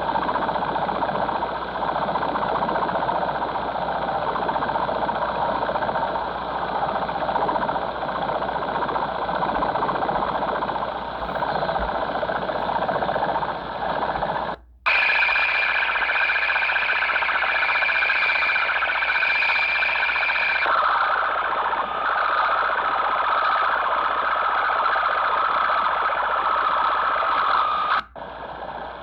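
Unidentified signal on about 6048 kHz shortwave played through a Tecsun PL-600 receiver's speaker: a harsh, noisy buzz for about half the time, then after a brief cut-out a steady whining tone with small breaks that steps down in pitch about two-thirds of the way through, before another short cut-out. The uploader wonders whether it is some kind of data transmission.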